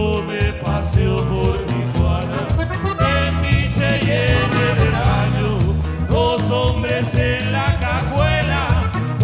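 Norteño band playing a song: a man sings lead over accordion, bajo sexto and drum kit.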